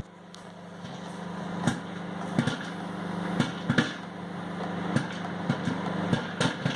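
Popcorn kernels popping inside a lidded plastic microwave rice cooker, heated without oil: irregular sharp pops, about a dozen, over the steady hum of the running microwave oven.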